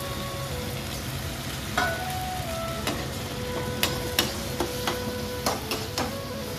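Chopped onions and tomatoes frying with a steady sizzle in a kadai, stirred with a perforated metal spoon that scrapes and clinks against the pan. There are several sharp clinks from about two seconds in.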